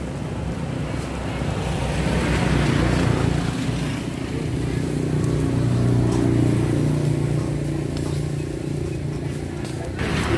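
Road traffic, motorbikes and cars, going past with a steady engine hum, swelling louder twice, about three and six seconds in.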